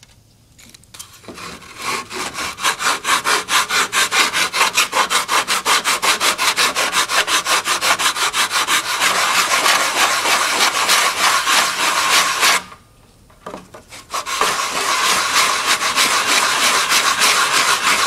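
Hand sanding of body filler on a car's gauge bezel panel with a sanding block: quick, even back-and-forth rasping strokes, several a second. They start about a second in, stop for about a second and a half two-thirds of the way through, then resume.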